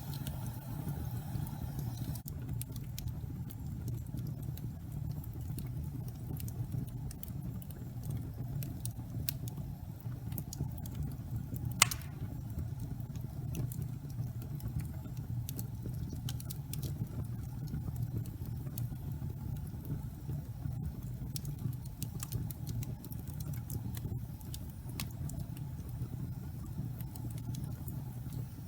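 Wood fire burning in a fireplace: scattered crackles and pops over a low, steady rumble, with one louder pop a little before halfway.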